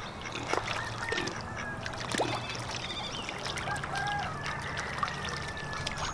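Faint farmyard animal and bird calls, short and scattered, over many small clicks and drips.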